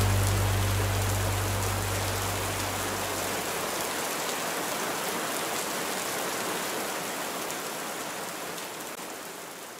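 Steady rain falling, gradually fading out. A low held hum dies away in the first few seconds.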